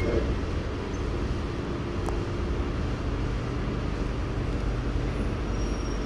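Steady low hum and rumble inside a C751B metro train car standing at a station platform with its doors still closed, with a single faint click about two seconds in.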